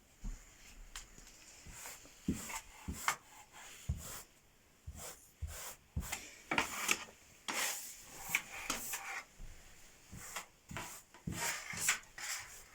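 A hand brush sweeping in short, irregular scratchy strokes, with a few light knocks in between.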